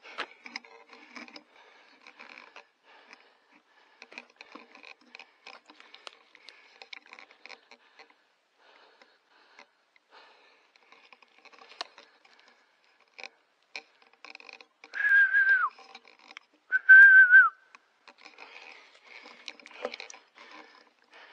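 Two short, steady whistles about a second apart, each dropping in pitch as it ends, over faint rustling and crackling.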